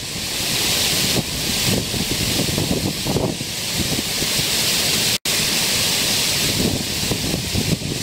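Creek water pouring steadily over a low concrete weir into a foaming pool, with wind buffeting the microphone in gusts underneath. The sound drops out for an instant just after five seconds.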